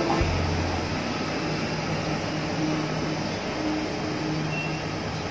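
KTM ETS electric multiple-unit train pulling away along the track: a steady rushing rumble of wheels and running gear with a faint electric hum, slowly fading. A brief low rumble sounds just after the start.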